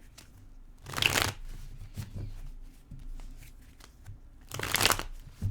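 A deck of tarot cards being shuffled: two short bursts of shuffling, about a second in and again near the end, with soft clicks of card handling between them.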